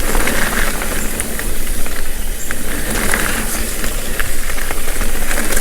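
Wind buffeting the bike-mounted camera's microphone while a mountain bike rolls fast over a dirt trail, with scattered clicks and rattles from the tyres and bike.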